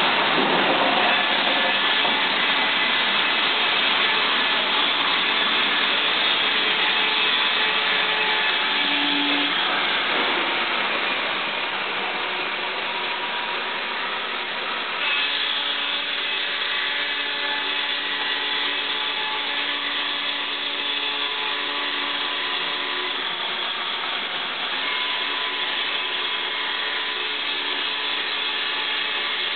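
Baker 40 hp electric carousel resaw running and sawing glued aspen blocks: a steady, dense mechanical noise with several faint whining tones that shift as it cuts. The tones change suddenly about fifteen seconds in.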